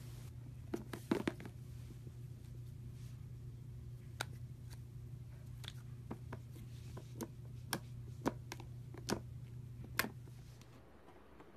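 Slime being squeezed and folded by hand, giving about a dozen sharp little pops and clicks at irregular intervals from air pressed out of it, over a steady low hum that drops away near the end.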